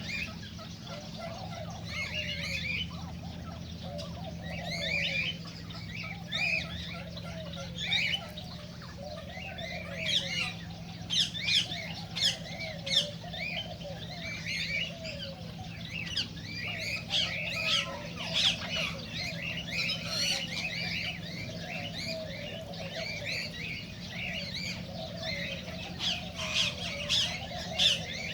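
Several cockatiels chirping and squawking over one another in a dense, continuous chatter with sharp louder calls, over a steady low hum.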